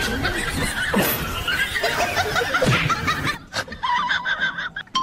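People laughing in high, breathy giggles that stop about three seconds in, followed by a brief steady tone near the end.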